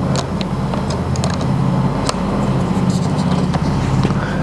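Scattered light metallic clicks from a small ratchet wrench and battery terminal hardware as cable ends are fitted to a motorcycle battery's terminal, over a steady low hum.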